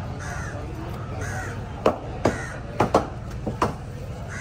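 Crows cawing repeatedly. In the second half, about five sharp knocks of a long knife striking the wooden chopping block as tuna is cut; the knocks are the loudest sounds.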